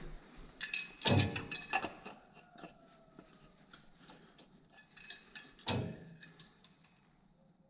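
Engine oil dipstick being drawn from and pushed back into its tube on a John Deere 8260R tractor with the engine off: a run of light metal clicks and scrapes, with two louder knocks, one about a second in and one near six seconds.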